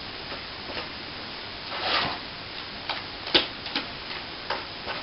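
A tool working setting plaster in a mixing container: irregular sharp taps and clicks, with one longer scrape about two seconds in. The plaster is being stirred and agitated to make it set faster.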